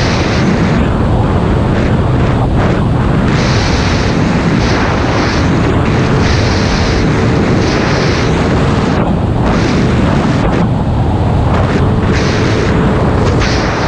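Wind rushing over the camera microphone at riding speed, over the steady drone of a Kymco Agility 50 scooter's engine fitted with a 72cc big-bore kit that is being run in.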